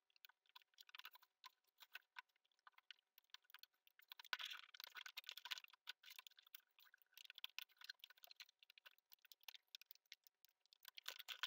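Faint, irregular clicking and crackling of a clear plastic moss pole sheet being bent along its edges, thickest about four to six seconds in.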